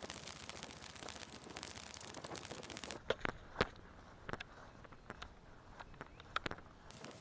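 Footsteps walking through grass: a dense rustling with small crackles for about the first three seconds, then separate sharp steps and clicks, and the rustle returns near the end.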